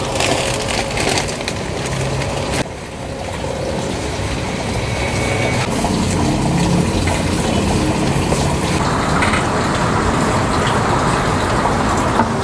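Burnt rice husk poured from a plastic sack into a plastic pot, crackling and rustling for the first few seconds, then hands working the husk into the soil with a steady rustling and crunching. A steady rushing background noise runs underneath.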